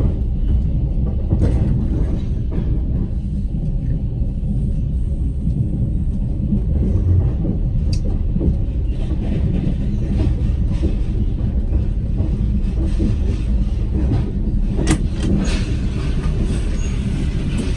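A moving train's steady low rumble on the rails, with a few sharp knocks of the wheels over rail joints.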